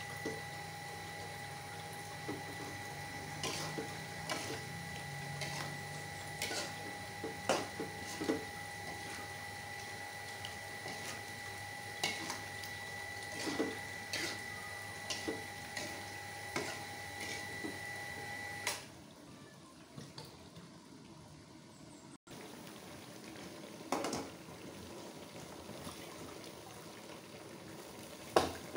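A metal ladle and spatula clinking and scraping against a wok while a thick sauce bubbles in it. A steady background whine cuts off about two-thirds of the way through.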